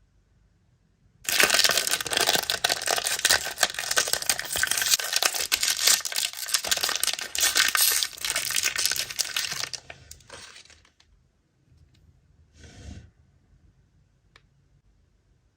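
Crinkly toy packaging being torn open and crumpled by hand: a dense run of crackling that starts about a second in, dies away after about ten seconds, and is followed by one short crinkle near the end.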